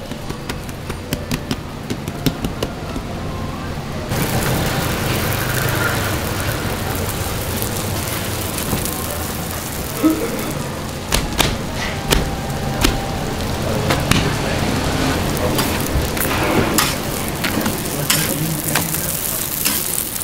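Roti canai frying on a flat oiled steel griddle: a steady sizzle that starts about four seconds in, after a few light taps. Sharp metal clicks and scrapes of a spatula on the griddle come through the second half as the breads are turned.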